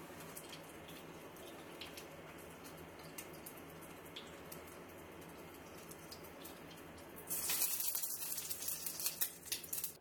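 Hot oil sizzling steadily around spring rolls frying in a pan, with small pops and clicks. Louder crackling and hissing start about seven seconds in as a fried roll is lifted out, dripping oil.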